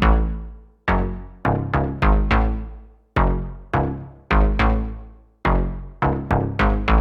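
Electronic background music: sharp, quickly decaying synth notes in a steady rhythm over deep bass hits.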